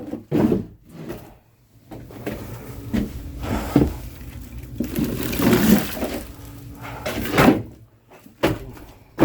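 Oak firewood being handled and stacked: a series of wooden clunks and knocks, several seconds apart, with scraping and rustling between them.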